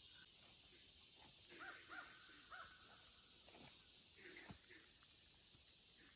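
Faint, quiet outdoor background with a steady high hiss and a few short bird calls: a cluster of three about a second and a half in, and a couple more around four seconds in.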